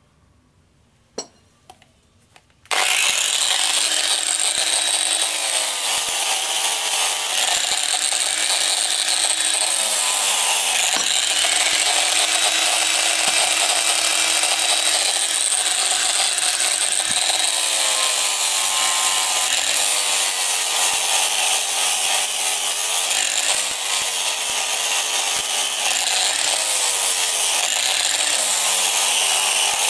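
Angle grinder with a sanding disc switched on about three seconds in, after a few faint knocks, then running under load as it sands a leaf-spring-steel throwing knife blade; the motor's pitch dips and recovers as the disc is pressed onto the steel.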